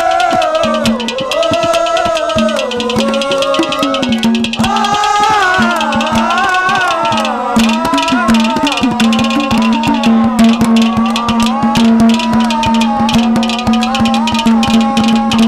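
Live Haryanvi folk ragni accompaniment: a melody that glides up and down over a steady held drone note, with fast hand-drum beats throughout.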